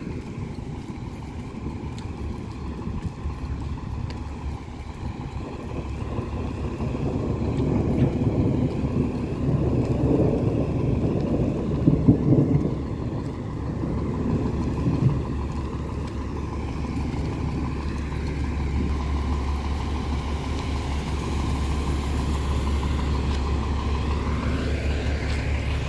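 City bus engine idling, a steady low hum that grows as the bus gets near, with a whine rising in pitch near the end. In the first half there is rougher traffic noise.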